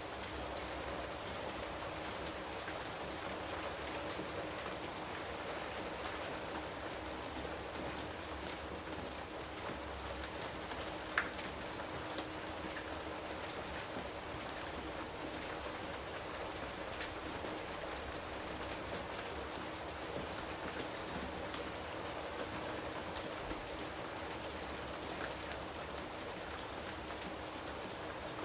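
Steady rain falling on jungle foliage, an even hiss dotted with individual drop ticks, with one sharper drip or click about eleven seconds in.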